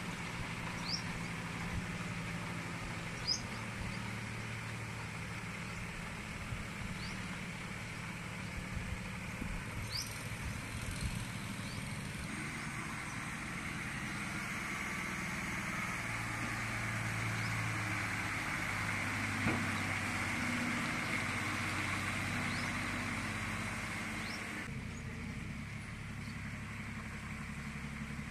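Isuzu Deca FXZ360 heavy truck's diesel engine running at low speed as the truck and its dump trailer roll slowly past, a steady low hum with a steady hiss over it.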